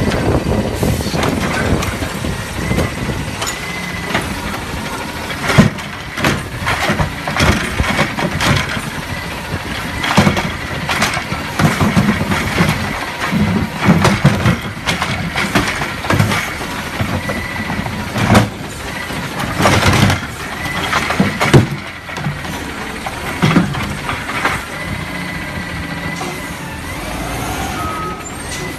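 Garbage truck engine running while its hydraulic automated side-loader arm works, the grabber repeatedly knocking and banging against a plastic wheeled trash cart that it fails to pick up. Several louder bangs come between about 5 and 24 seconds in as the cart is struck and tipped over.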